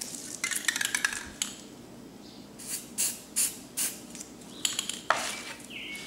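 Aerosol spray paint can sprayed in a series of short hissing bursts, four in quick succession midway, with a few light clicks near the start.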